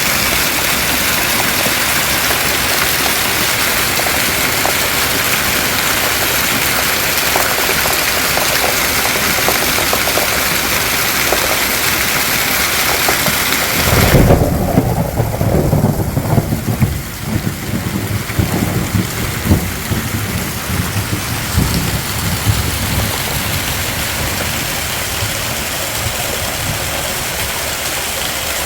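Heavy rain pouring down in a steady hiss. About halfway through the hiss drops suddenly and a low rumble with irregular thuds takes over.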